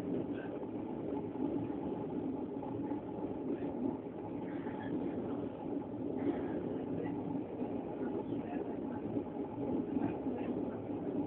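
Steady rumble of an S-Bahn commuter train running, heard from inside the carriage.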